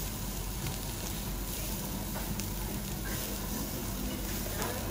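Beef sizzling on a wire-mesh grill over charcoal, a steady hiss with a few faint crackles.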